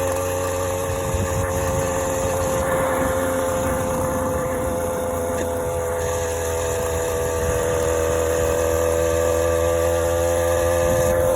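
Motorized bicycle's ported, high-compression engine running steadily under way, holding a fairly even pitch that sags a little and then recovers.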